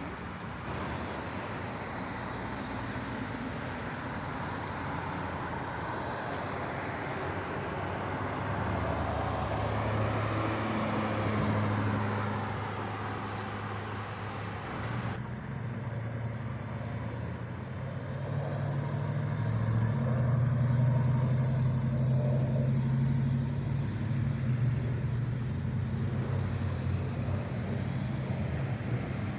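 Road traffic: cars driving past on a busy road, with engine hum and tyre noise that swells as vehicles come by, loudest about a third of the way in and again past the middle. The sound changes abruptly about halfway through.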